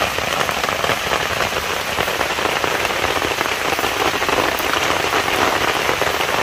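Steady rain falling onto standing floodwater and wet leaf litter: a dense, even patter of drops that does not let up.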